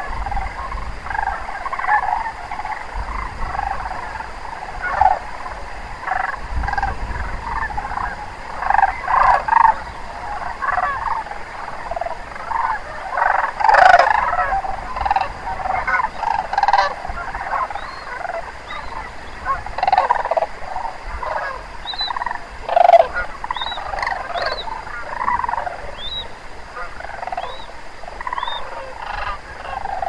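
A large flock of sandhill cranes calling together: overlapping rolling, rattling bugles forming a continuous chorus, loudest around the middle. Short high chirps from a small bird come a few times in the second half.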